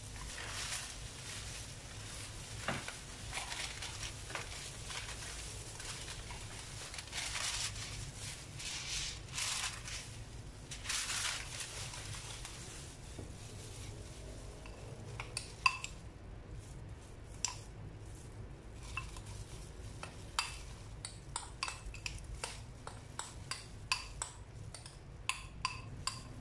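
Plastic-gloved hands rubbing and massaging marinade into a rack of pork ribs on a foil-lined tray. From a little past halfway, a spoon scrapes and clinks repeatedly against a ceramic bowl as the marinade is spooned out.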